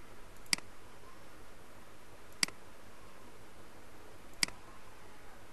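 Three single computer-mouse clicks, about two seconds apart, over a faint steady room hiss.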